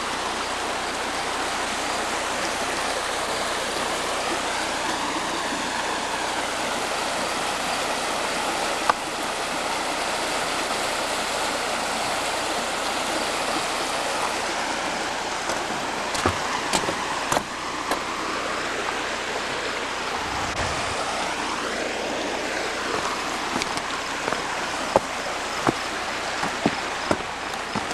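Steady rush of water flowing over rocks in a stream. From about halfway on, footsteps and knocks on rock come in over it.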